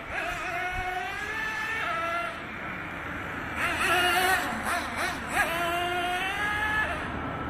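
Traxxas T-Maxx nitro monster truck's .18 two-stroke glow engine revving as the truck is driven, its high-pitched whine rising and dropping several times. It is loudest about four to five seconds in.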